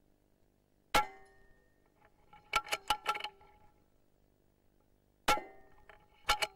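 Two suppressed rifle shots about four seconds apart, each a sharp crack with a short metallic ring. Each is followed about a second and a half later by a quick run of metallic clicks as the action is cycled to chamber the next round.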